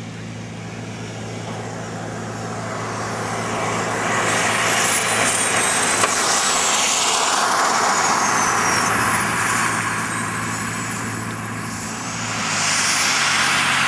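Jet-powered go-kart's jet engine whining and rushing as the kart passes close by. The sound builds, and the high whine drops in pitch as it goes past. A second high whine rises near the end.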